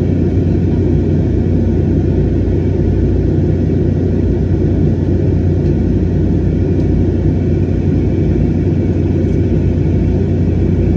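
Steady rumble of an airliner's cabin noise in flight, engines and airflow heard from inside the cabin, with a low steady hum underneath.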